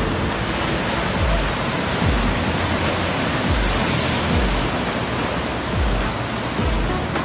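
Ocean surf breaking and washing over shoreline rocks, a steady rush of water. Under it, background music with a slow regular bass beat.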